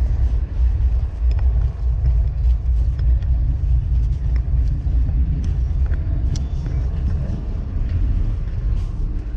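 Footsteps and light knocks on a diesel locomotive's steel steps and front walkway and through its nose door, scattered clicks over a steady deep rumble.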